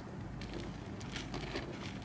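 Faint scratching and crackling of loose soil, starting about half a second in and getting busier, as a common rain frog digs itself in. A steady low hum runs underneath.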